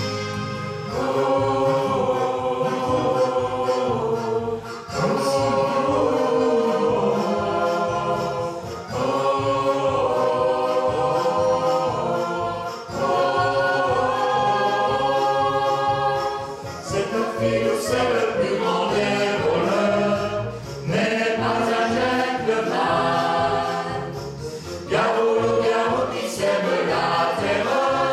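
Small mixed choir of men and women singing a choral part from a stage musical together, in phrases of about four seconds with a short breath between each.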